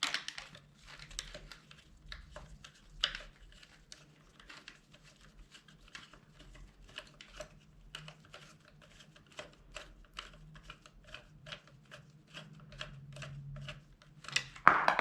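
Irregular small clicks and taps of a flat screwdriver and metal parts as the pistol grip is unscrewed and removed from an AK74 airsoft replica's steel body.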